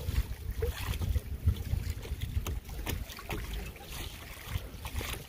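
Water trickling and lapping around a kayak, with wind rumbling low on the microphone and scattered small splashes and drips.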